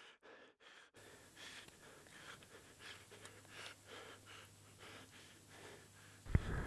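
Faint, quick, hissy breathing close to the microphone, then a louder bump near the end.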